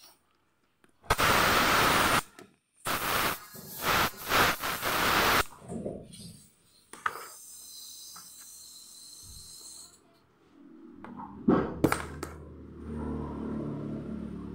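Compressed air hissing loudly in two bursts, the first about a second long and the second about two and a half seconds, as a patched motorcycle inner tube is inflated through its repaired valve for a leak test. A fainter hiss follows, then a few sharp knocks near the end as the tube is handled.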